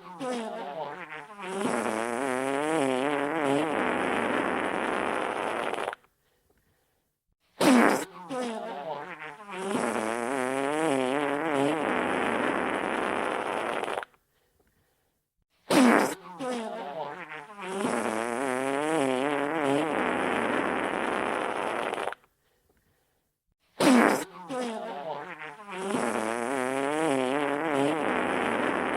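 Wet fart sound effect played on a loop, heard four times. Each one starts with a sharp burst and runs into about six seconds of wavering, sputtering flatulence, then cuts off abruptly before a short silence.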